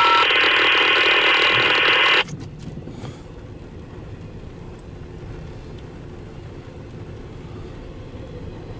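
Railroad scanner radio opening with a loud burst of static hiss, starting with a short tone and cutting off abruptly after about two seconds. A low steady rumble continues underneath.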